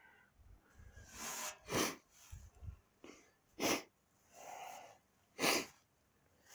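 Three short, sharp breaths or sniffs close to the microphone, about two seconds apart, with softer breathing and faint low handling bumps between them.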